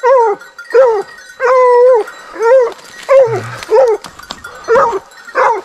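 Hunting hound baying: about eight loud, short yelping bays in quick succession, one drawn out longer about one and a half seconds in.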